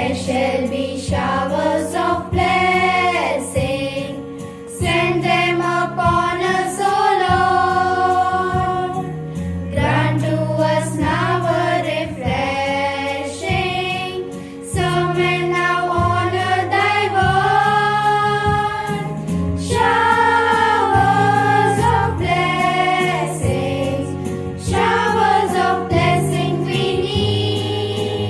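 A choir singing a song with instrumental accompaniment: long held notes over a bass line that changes note every second or two.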